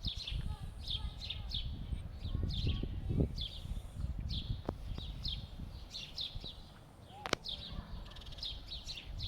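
A small bird chirping over and over, short falling chirps about twice a second, over a low rumble that is strongest in the first few seconds. A single sharp click about seven seconds in.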